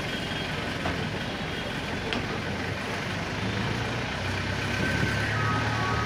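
Engine of a slow-moving vehicle running, heard from inside its cabin over steady road noise. The engine's low hum grows louder about three and a half seconds in.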